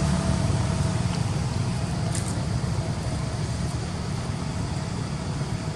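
Low, steady rumble of a motor vehicle, slowly fading away.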